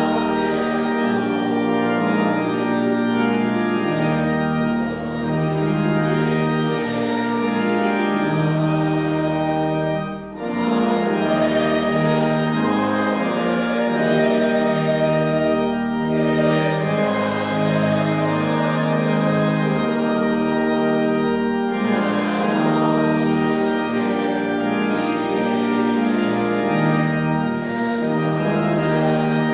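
Organ playing a hymn tune in sustained, changing chords, with a short break between phrases about ten seconds in.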